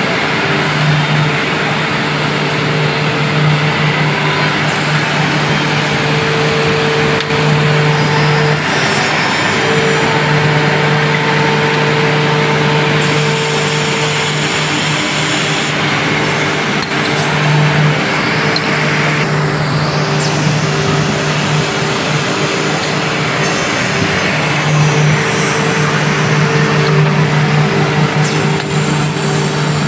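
Woodmaster WM-150NC CNC tenon milling machine running, a steady motor hum under a constant rushing machine noise.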